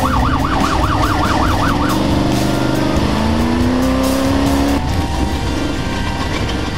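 Trophy truck engine running hard at racing speed, rising in pitch and dropping off sharply about five seconds in. A warbling siren sounds over it for about the first two seconds.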